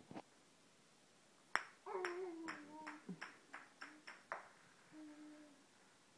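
A baby squealing and babbling excitedly while a small hard ball bounces on a tile floor: a sharp first bounce, then a run of about eight taps coming quicker and quicker, followed by a short hummed vocal sound near the end.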